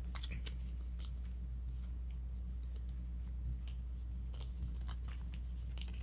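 Trading cards being handled and slid into plastic penny sleeves: light, scattered clicks and rustles over a steady low hum.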